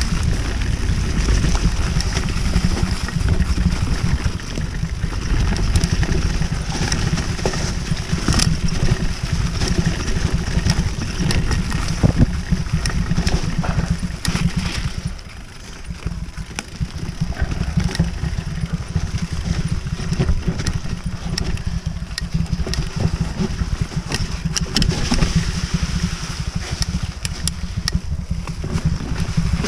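Mountain bike riding fast down a dirt forest trail: wind rumbling on the microphone, tyre noise on the dirt, and frequent clicks and knocks as the bike rattles over bumps. The noise eases off briefly about halfway through, then picks up again.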